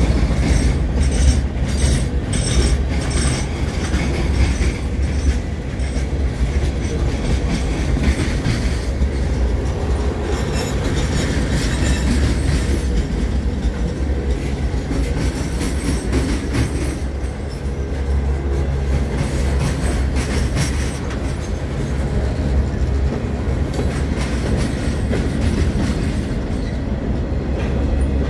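Freight cars of a CSX train (boxcars, gondolas and covered hoppers) rolling past close by: a steady low rumble, with the wheels clicking over rail joints in a quick repeated run during the first few seconds.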